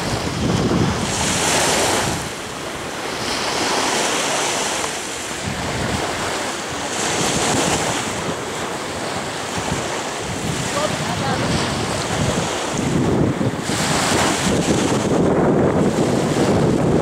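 Wind buffeting the microphone over the wash of small sea waves; the noise swells and eases in gusts every few seconds.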